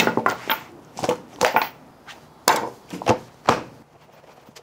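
Leather knife roll full of knives being unrolled and handled on a wooden butcher block, giving a string of short, sharp, irregular knocks and taps that cluster early and thin out after about three and a half seconds.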